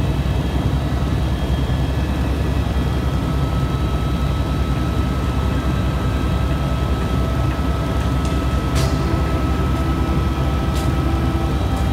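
Helicopter rotor and engine noise heard from inside the cabin in flight: a steady low drone with a fast, even pulsing. A thin steady whine sets in a few seconds in, and a few faint clicks come near the end.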